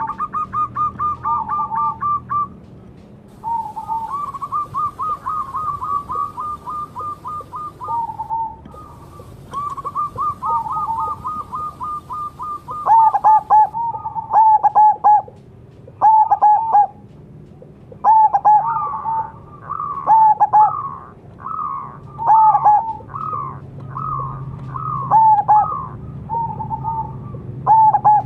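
Zebra dove (perkutut) cooing: fast runs of short, rippling notes in the first half, then louder, more widely spaced coos from about halfway on.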